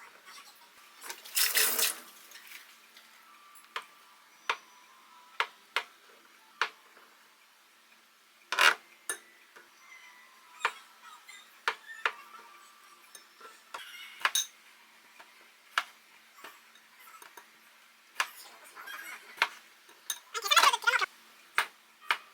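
Dishes and cutlery clinking: scattered light clicks and taps, with three louder clattering bursts, about a second and a half in, near the middle and near the end.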